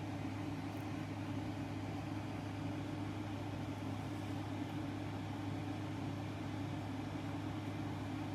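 Steady low machine hum with no change, over a faint even hiss.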